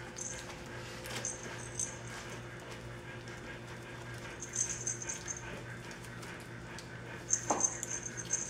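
Four-week-old puppies whimpering and squeaking in short high-pitched bursts, several times, over a steady low hum.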